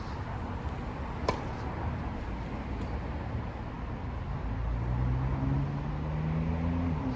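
Low rumble of a road vehicle's engine, its note rising slowly over the last couple of seconds, with one sharp knock about a second in.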